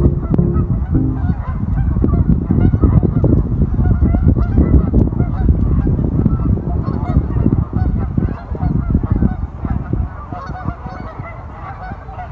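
A flock of Canada geese honking, many overlapping calls at once, over a steady low rumble; the calling grows quieter near the end.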